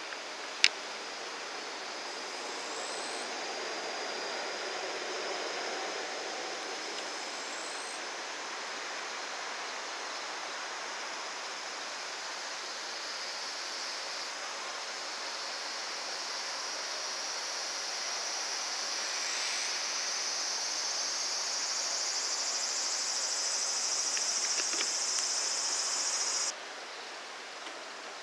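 A steady high insect drone over a constant rushing background noise. The drone grows louder in the second half and cuts off abruptly shortly before the end. A single sharp click sounds about half a second in.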